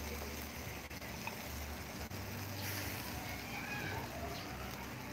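Chicken leg quarters sizzling faintly on a charcoal grill: a steady low hiss.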